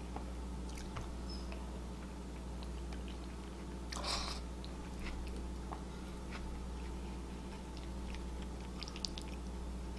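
Close-miked chewing and mouth sounds of a person eating curry and rice, with a brief noisy slurp as a spoonful goes into the mouth about four seconds in. Scattered small clicks throughout, over a steady low hum.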